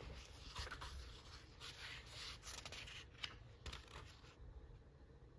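Faint rustling and scraping of magazine paper as pages are handled and turned, in several short rustles with a light tick a little after three seconds in.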